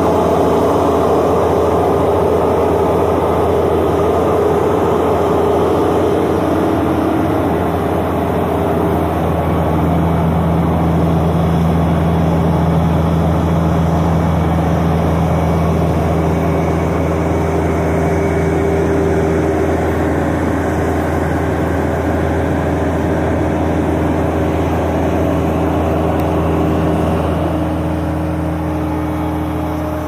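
Link-Belt mobile crane's engine running steadily while hoisting a suspended load, with small shifts in engine speed and a slight drop in level near the end.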